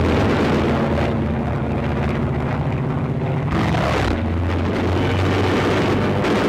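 Piston-engined fighter planes droning steadily in a dogfight, with one plane passing close about three and a half seconds in, its engine note falling as it goes by.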